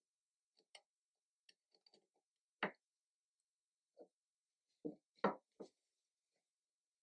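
Scattered light clicks and taps of a combination square and marking tool against a wooden board during marking out: a few faint ticks, a sharp click a little over halfway through the first three seconds, then a soft knock and a quick cluster of three louder clicks near the end.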